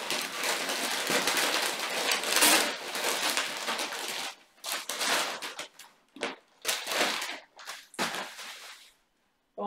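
Gift wrapping paper and a plastic bag crinkling and rustling as a wrapped package is torn open and clothes are pulled out. A dense, continuous crackle runs for about four seconds, then gives way to a series of shorter separate rustles.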